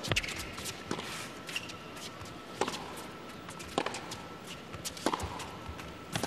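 A tennis rally on an indoor hard court: about six sharp racket strikes on the ball, roughly one every second and a quarter, with players' footsteps on the court between them.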